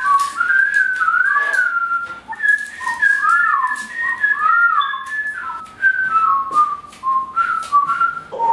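A person whistling a wandering tune, one clear note at a time sliding up and down, with short clicks and knocks of kitchen clatter along the way.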